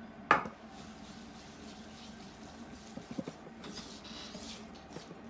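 A sharp knock against a mixing bowl about a third of a second in, then soft scraping and a few light clicks around three seconds in, as dried buckwheat groats are tipped into a thick chocolate mixture and stirred.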